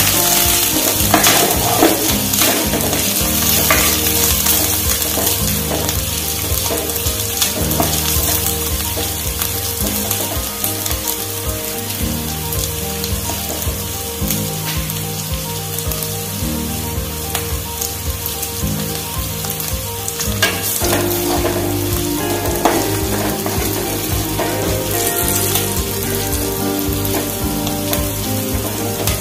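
Chopped onions, garlic and capsicum sizzling as they fry in hot oil in a pan, stirred now and then with a spatula, giving a few short scrapes and knocks.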